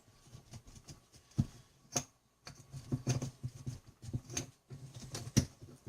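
Clicks, taps and scraping of hard plastic and metal parts being handled as the front housing of a Ryobi P260 cordless impact driver is taken off, with four sharper knocks spread through.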